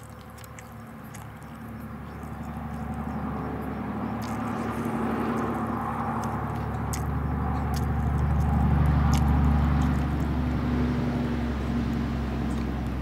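An engine's steady, low hum grows louder over several seconds, peaks a little past the middle and eases slightly toward the end, like a motor vehicle passing. A few faint ticks sound over it.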